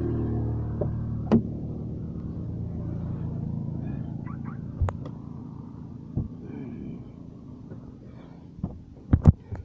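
A vehicle engine running steadily and fading away over the first few seconds, with sharp clicks of a car door handle and latch as the door is opened. Just before the end come two sharp knocks, the loudest sounds, as someone climbs into the car.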